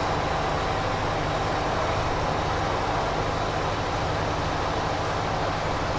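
Steady outdoor noise: a dense low rumble with a hiss over it, unchanging throughout, with no distinct knocks or hoofbeats standing out.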